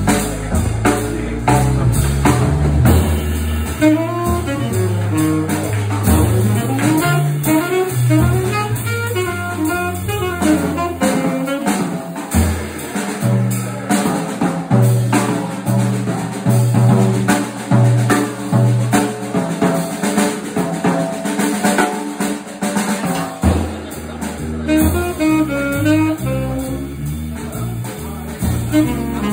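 Live jazz from a trio of tenor saxophone, electric bass guitar and drum kit. The saxophone drops out for a stretch in the middle, leaving bass and drums, and comes back in near the end.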